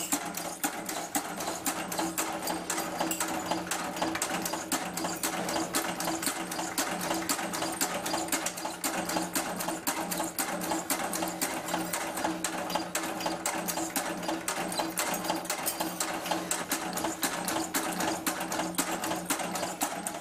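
Automatic packing-clip making machine running steadily, with a rapid even clatter of about four to five clicks a second over the steady hum of its drive.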